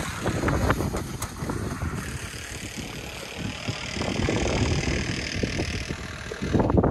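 Wind buffeting the microphone: an irregular low rumble that swells briefly near the end, with a few faint clicks.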